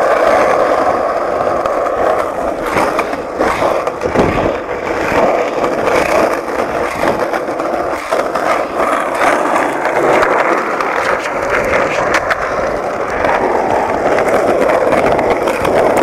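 Skateboard wheels rolling fast on asphalt during a downhill run: a steady rolling noise with a few short clicks and knocks from the board.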